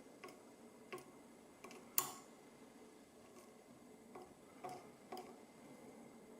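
Small metal lock pins and parts being handled, giving scattered light clicks and taps, with one sharper click about two seconds in.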